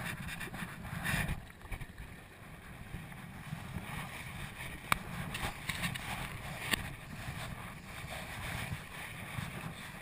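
Kayak paddle strokes through calm sea water, with wind rumbling on the camera microphone; two sharp clicks about five and seven seconds in.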